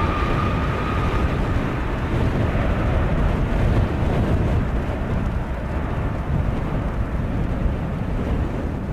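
Boeing 737 MAX's CFM LEAP-1B turbofans at takeoff thrust as the jet lifts off and climbs away. A fan whine fades out about a second in, leaving a loud, deep engine noise that slowly eases as the aircraft climbs.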